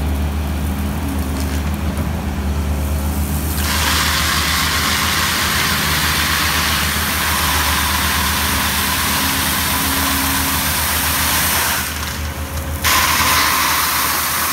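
Hydraulic excavator engine running steadily while its bucket tips gravel over corrugated plastic pipes. The pouring stone makes a loud, even hiss that starts about a quarter of the way in, breaks off for about a second near the end, then starts again.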